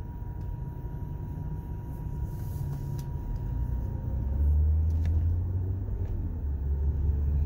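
Car cabin road noise: a steady low engine and tyre rumble as the car drives in traffic, growing louder about four seconds in as it picks up speed.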